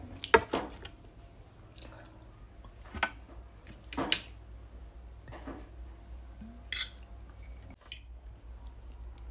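Eating utensils clinking against a dish: a handful of separate sharp clicks spread over several seconds, the loudest about half a second in.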